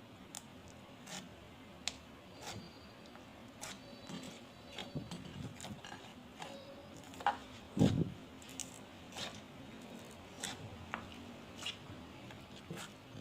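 Crunchy slime being squeezed and pressed by hand: irregular crackling clicks and pops, with a few soft low squishes, the loudest a little past the middle.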